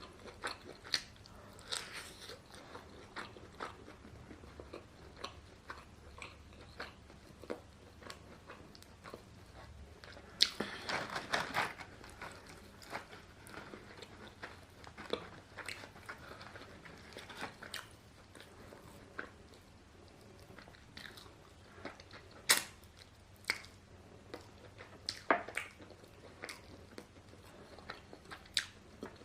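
Close-miked eating: chewing and biting into food, with scattered crunches and wet mouth clicks. There is a longer run of crunching about ten seconds in.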